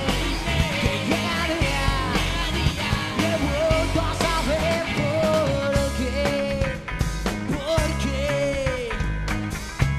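Live rock band playing: a male lead vocal sings over electric guitars, bass and a Sonor drum kit, the voice falling away shortly before the end as the band plays on.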